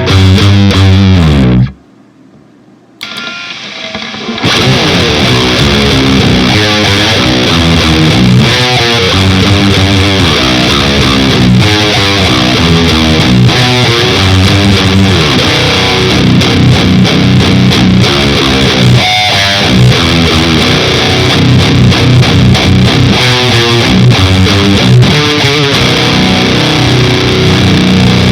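Heavily distorted electric guitar played through a Black Harbor Sound Belfast 800 British-style distortion pedal, riffing with chugging notes. The playing stops about two seconds in, comes back quietly, then resumes at full volume after about four and a half seconds and runs on steadily.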